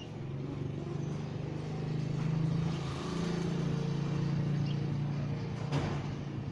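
A motor vehicle's engine running steadily nearby, a low even hum, with a short sharp click near the end.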